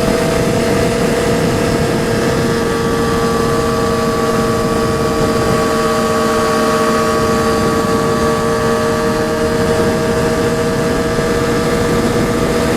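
Triumph Daytona 675R's inline three-cylinder engine running at a steady high pitch while cruising, over a constant rush of wind noise.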